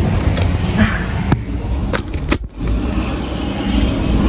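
Rumbling handling and wind noise on a phone microphone, with scattered clicks and knocks as someone climbs into a car and settles in the seat.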